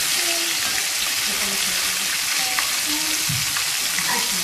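Flour-coated chicken pieces frying in hot oil in a wok: a steady sizzle, with a metal spatula turning the pieces.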